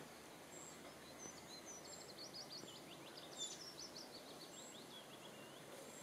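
A songbird singing faintly: a run of quick high notes that starts about a second in, lasts around four seconds and drops a little in pitch toward the end.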